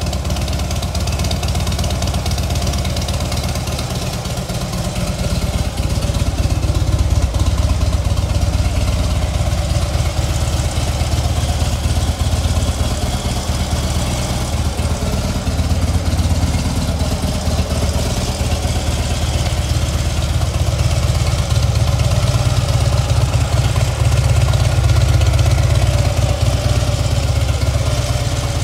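Harley-Davidson Fat Bob's 1584 cc V-twin idling steadily through Screaming Eagle aftermarket exhausts.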